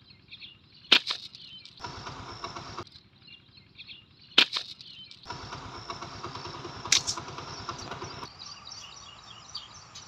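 Three sharp snaps, about a second in, about four and a half seconds in and near seven seconds. Between them an engine runs in two short stretches that start and stop abruptly. Faint bird chirping continues in the background.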